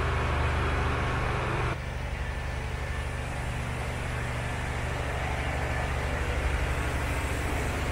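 Steady low mechanical drone with a hiss over it, dipping slightly in level about two seconds in.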